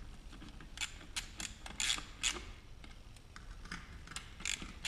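Hand socket ratchet clicking in short, irregular runs as the screws of an outboard lower unit's water pump housing are tightened down, with a pause in the middle.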